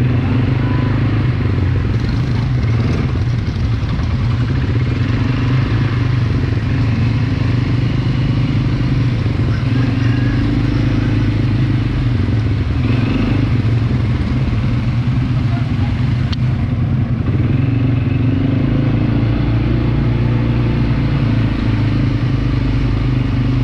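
ATV engine running at a steady, even pitch, loud and close.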